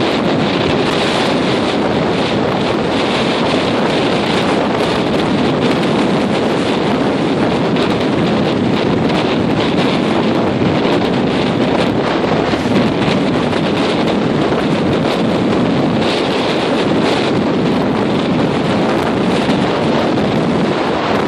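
Gale-force wind, around 60 miles an hour, blasting across the microphone: a loud, steady rush of noise.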